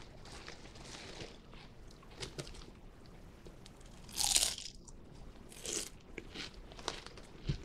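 A person biting and chewing crunchy Lay's potato chips, with small crunches throughout. There is a loud crunch about four seconds in as a chip is bitten and another, smaller crunch near six seconds.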